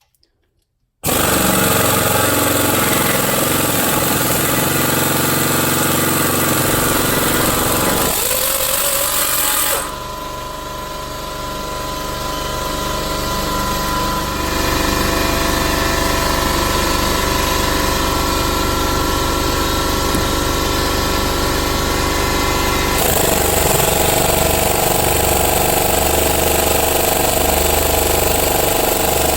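Air impact ratchet (Harbor Freight Earthquake 3/8-inch) hammering steadily and loudly on brake hardware, its pitch and level changing suddenly several times along the way.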